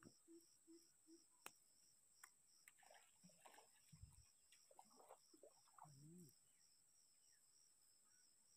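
Near silence with faint insects chirping: a steady high whine and an even, rapid pulsing chirp. A low repeated call stops about a second in, and a few faint scattered calls follow.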